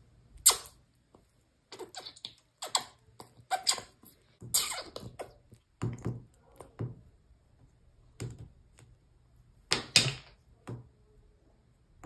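Small plastic doll being tapped and set down on a granite countertop: an irregular run of sharp plastic-on-stone clicks and knocks, loudest about half a second in and again near ten seconds.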